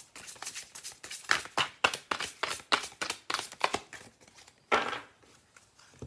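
A deck of angel oracle cards being shuffled by hand: a quick run of papery slaps and flicks, about four a second, then one louder slap just before five seconds in as the shuffling stops.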